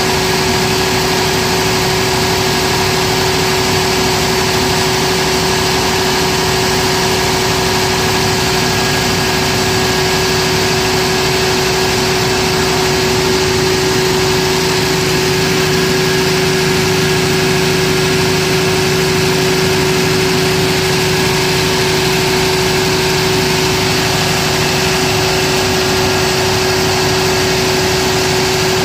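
Cummins diesel engine of a 750 kVA generator set running at steady speed, a loud constant drone with a steady hum held over it.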